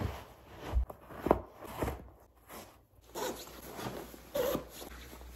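Scuffs and thumps of fur-lined winter boots being pulled on, then the rustle of a puffy down parka being put on and done up.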